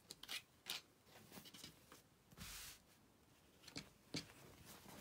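Quiet handling noise of a piece of fabric being shifted and smoothed: soft rustles and a few light clicks, with a brief swish about halfway through.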